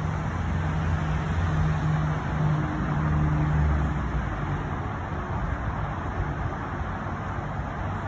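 Traffic on the adjacent street: a motor vehicle's low engine hum over steady road noise, growing to its loudest about three and a half seconds in, then fading away.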